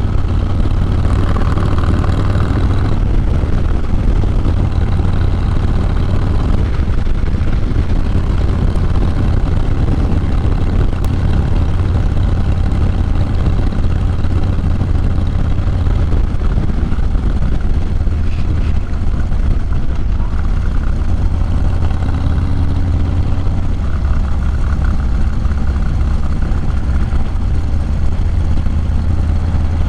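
Harley-Davidson Low Rider S's 110-cubic-inch V-twin running on the move through a Sawicki Speed 2-into-1 exhaust: a steady, deep engine note with only small changes in pace.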